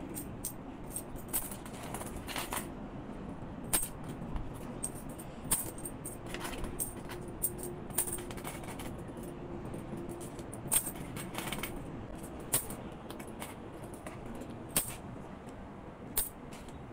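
Loose metal peso coins clinking against each other as they are picked up and sorted by hand from a bag of coins. The clicks are sharp and come irregularly, about one every second or so.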